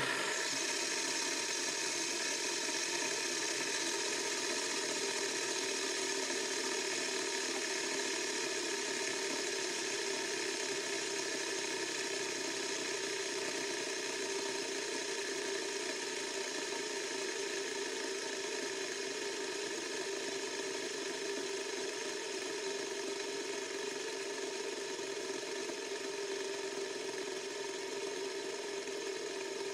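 LED light-up fidget spinner whirring on its bearing after a flick: a steady whir with ringing tones that starts suddenly and very slowly fades as it spins down.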